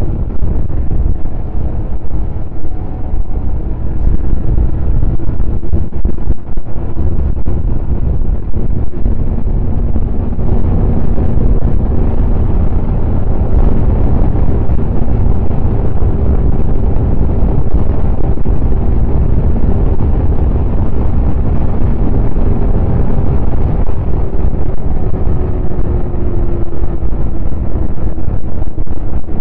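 Snowmobile engine running steadily at trail-riding speed, its hum shifting slightly in pitch near the end, with heavy wind buffeting the microphone.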